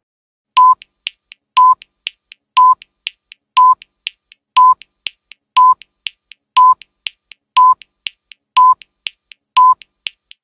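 Countdown timer sound effect: ten short, even beeps, one a second, with fainter ticks between them, counting down ten seconds.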